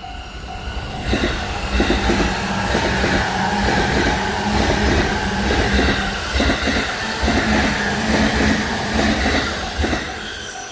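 An electric Saikyo Line commuter train passes a level crossing, its wheels clacking over the rail joints about twice a second over a steady motor hum, loud from about a second in. Under it the crossing's warning bell rings in quick, even dings, heard plainly at the start and again as the train's noise fades near the end.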